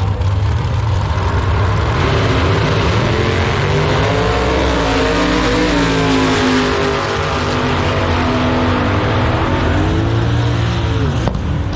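Two outlaw doorslammer drag cars launching off the line and racing down the strip. A steady engine drone jumps to a loud full-throttle blast about two seconds in, then the engine pitch climbs and falls repeatedly as the cars run away down the track.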